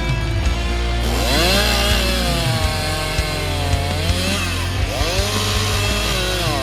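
Gasoline chainsaw cutting into a tree, its engine revving up about a second in, dropping in pitch, then revving again, with rock music playing underneath.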